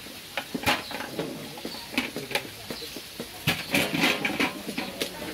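Metal spoon clinking and scraping against the side of an aluminium bucket while stirring a thick mixture: irregular clinks, with a busier run near the end.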